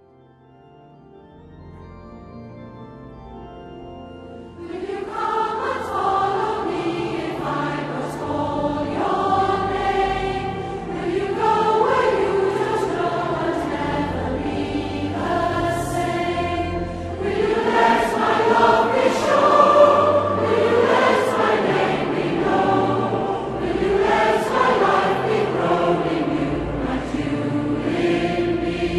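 Recorded choir singing a slow choral piece, starting softly and swelling to full voice about five seconds in.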